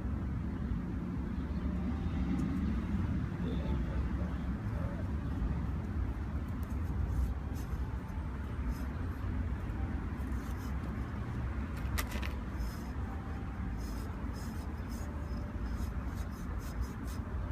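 Light scraping and scattered clicks as a cloth cover is slid by hand onto the frame of a Perfect Crunch ab machine, over a steady low rumble; one sharper click comes about twelve seconds in.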